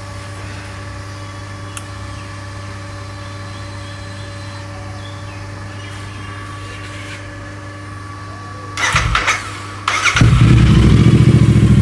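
A steady low hum, then short bursts of the starter cranking about nine seconds in. About ten seconds in, the Royal Enfield Super Meteor 650's parallel-twin engine catches and idles loudly without revving, with a deep, bassy note through Gursewak aftermarket exhausts.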